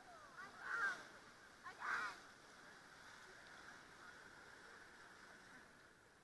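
Two short bursts of muffled whoops and shouts from rafters, about a second apart, over the faint steady rush of whitewater rapids.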